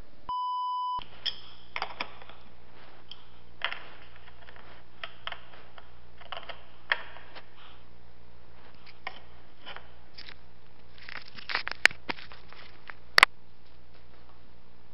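A short electronic beep near the start, then scattered clicks and taps of footboard plates and screws being handled and fitted on the scooter. Two sharp clicks near the end are the loudest.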